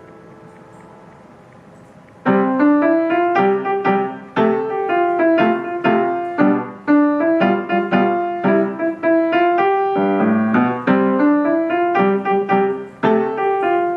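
Piano playing: a held chord rings and fades for about two seconds, then a lively melody with a bouncing accompaniment starts up and runs on.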